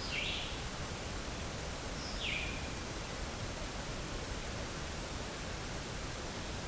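Steady outdoor hiss with two short, high calls that fall quickly in pitch, like a bird's, one just after the start and another about two seconds later.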